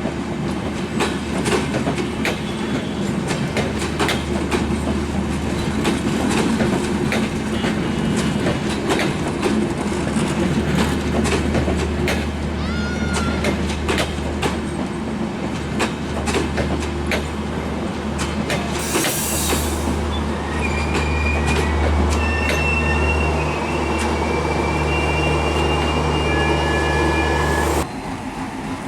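A passenger train running past, its wheels clattering over the rail joints over a steady low hum. High squealing tones from the wheels come and go in the second half, and the sound drops suddenly about a second before the end.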